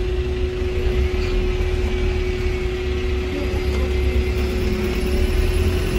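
Volvo B5LH diesel-electric hybrid bus drivetrain running steadily, heard inside the passenger cabin: a low rumble with a constant steady tone over it.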